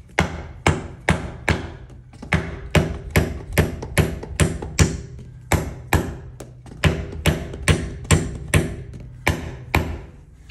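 Rubber mallet striking a wooden wedge in a steady run of sharp blows, about three a second, with a short pause a little past the middle. The wedge is being driven under a heavy iron door, lifting it on its barrel hinges.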